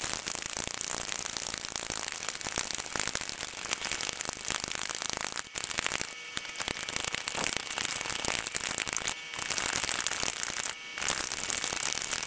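A spoon stirring Epsom salt into water in a plastic cup: a steady scraping, rattling swirl of undissolved salt crystals against the cup, with short pauses about six, nine and eleven seconds in.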